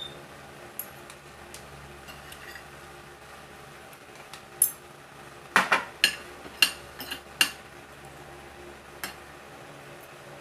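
Metal spoon and fork clinking and tapping on a plate and bowl as rice is scooped and food eaten: scattered sharp clinks, with a quick run of about six in the middle.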